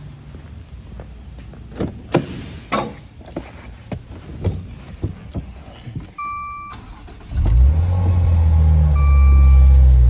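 Maserati Ghibli engine starting about seven seconds in and settling into a steady idle, after a few knocks and clicks and a short electronic dashboard chime about six seconds in. The start shows that the no-start is cured once the contacts of the 175 amp fuse, which was not making good contact, were cleaned.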